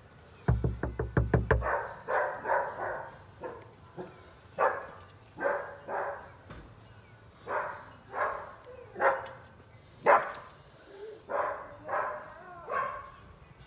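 About seven quick knocks on a door, about half a second in, followed by a dog barking repeatedly, a dozen or so short barks.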